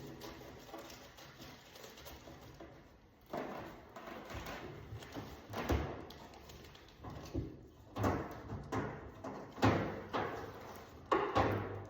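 Irregular knocks and thumps of hands and tools working on a microwave and its cabinet, coming more often and louder in the second half.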